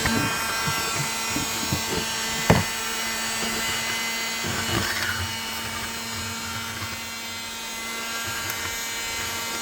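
Small handheld cordless vacuum cleaner running steadily with a constant motor whine, with occasional knocks and rubbing from the nozzle attachment working over a keyboard. There is one sharp click about two and a half seconds in.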